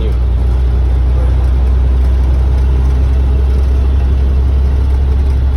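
Semi truck's diesel engine droning steadily inside the cab while driving, a strong low hum that grows louder right at the start and then holds steady.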